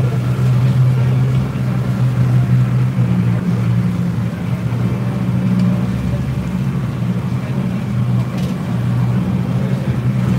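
Glass-bottom tour boat's engine running steadily while underway: a low, unchanging hum.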